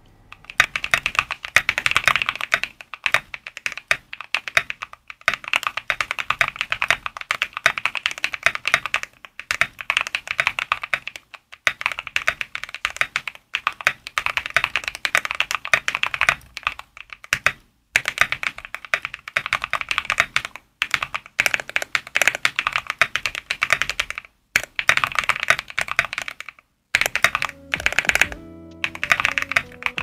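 Fast typing on an Ajazz AC064 mechanical keyboard with lubed Ajazz Banana tactile switches, a foam-padded aluminium case and PBT keycaps: a dense run of keystroke clicks in bursts, broken by brief pauses.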